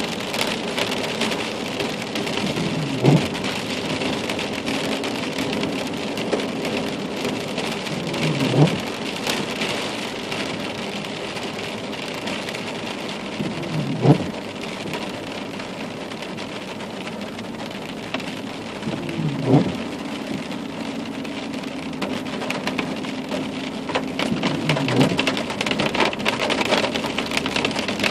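Steady rain falling hard. A short swooping sound, dipping in pitch and rising again, recurs five times at even intervals of about five and a half seconds.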